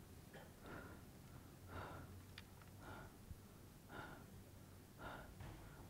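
A man breathing heavily in short, even breaths, about one a second, faint.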